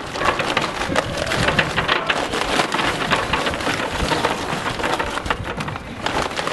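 Match Light charcoal briquets pouring from their bag into a steel barrel grill, a dense, continuous clatter of lumps knocking against each other and the barrel.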